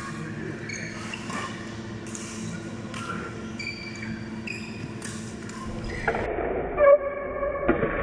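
Badminton rally: sharp racket strikes on the shuttlecock every second or two, the loudest near the end, with short high squeaks from shoes on the court floor between the hits.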